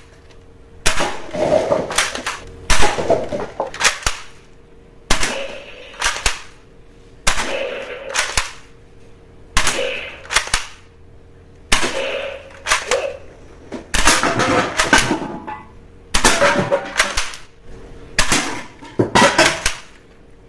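Gun firing sound effects: short rapid volleys of shots repeating about every two seconds, each a cluster of sharp cracks with a rattling tail.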